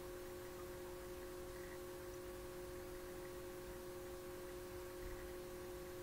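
Faint steady electronic hum with hiss from a CCTV camera's audio recording: a few fixed tones, with no distinct noise standing out.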